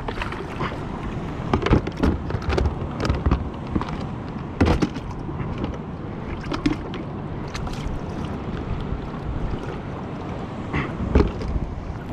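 Water lapping against a plastic kayak hull, with wind on the microphone and scattered sharp knocks and clunks as gear, including a plastic container, is handled in the kayak.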